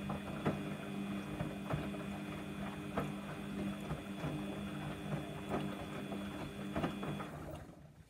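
Samsung washing machine running, its drum motor humming with a faint high whine and a soft knock about every 1.2 seconds as the drum turns. The motor winds down and stops just before the end.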